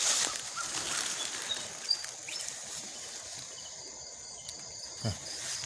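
Night-time insect chorus: a steady high trill of crickets, with a few short chirps over it, a click about two seconds in and a short low falling sound near the end.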